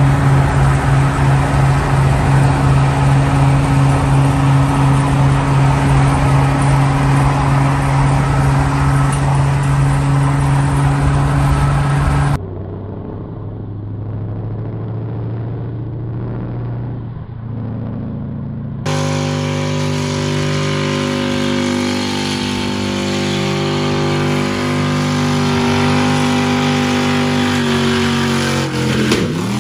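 Car engines held at high revs in three burnout clips, cut together. For about twelve seconds a pickup truck's engine drones at a steady pitch; after an abrupt cut comes a quieter, thinner-sounding clip of a Corvette's burnout. From about nineteen seconds a Crown Victoria convertible's engine is held at high revs, its pitch stepping up and down.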